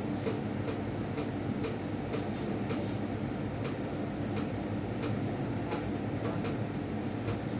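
Close-miked chewing of melon: a run of small wet clicks, a few each second, over a steady low machine hum.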